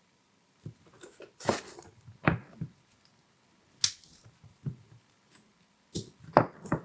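Scattered clicks, taps and short rustling peels of hands handling adhesive tape and a pen, at irregular intervals with gaps between.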